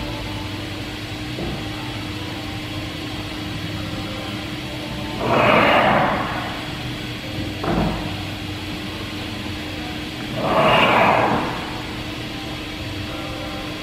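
Thermwood C-40 CNC router running with a steady hum and a held tone. Two loud rushing bursts come about five seconds apart, each lasting a little over a second, with a single sharp click between them.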